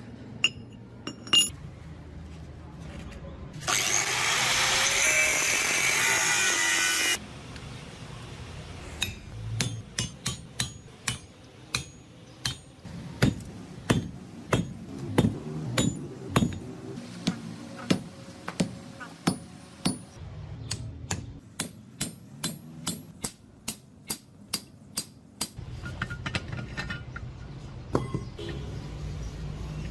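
Hammer blows on hot steel at the anvil, one to two sharp clinking strikes a second, as a thread tap is forged. Earlier, for about three seconds, there is a loud rushing noise with a falling tone in it.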